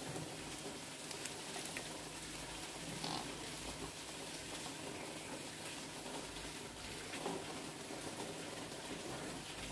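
Egg batter poured into a nonstick pan of hot melted butter, sizzling faintly and steadily as it spreads.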